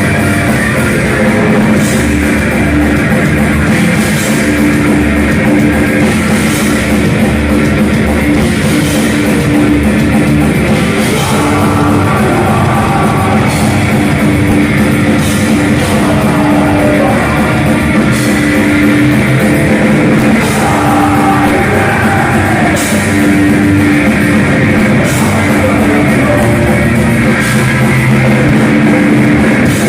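Loud heavy metal music: distorted electric guitars and a drum kit.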